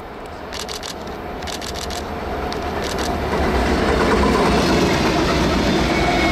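A BNSF freight train's diesel locomotives approach and pass close by, the engines' rumble and the wheels on the rail growing steadily louder for about four seconds and then holding. A faint wheel squeal comes from the curve near the end. A few quick camera shutter clicks sound in the first few seconds.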